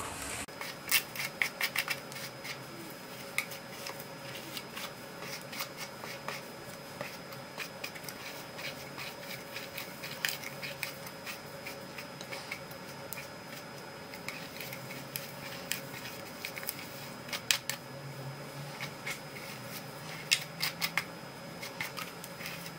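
A wet brush raking through short, curled hair: short scratchy rasps in bunches, with quieter pauses between them.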